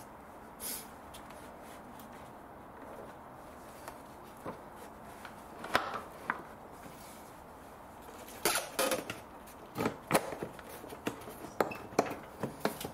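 Hard plastic trim being worked into its pins and slots by hand: scattered clicks, knocks and rattles of plastic against plastic, a few at first and coming thick and fast in the second half.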